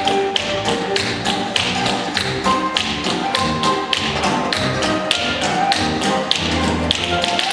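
Quick, steady tapping, about four or five sharp strikes a second, keeping a beat over music with held pitched notes.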